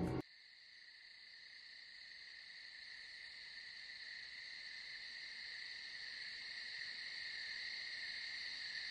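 Night-time chorus of crickets, a steady high-pitched chirring that grows slowly louder.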